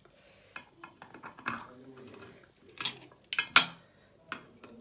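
A metal fork clinking and scraping against a shellfish shell and a ceramic plate as the meat is picked out. It comes as a run of short, sharp clinks, the loudest about three and a half seconds in.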